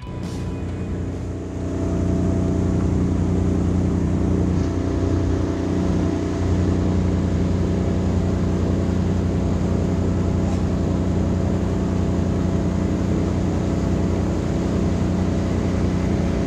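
A 60 hp outboard motor running steadily at cruising speed, pushing the boat along with water rushing past the hull. The sound builds over the first two seconds, then holds even.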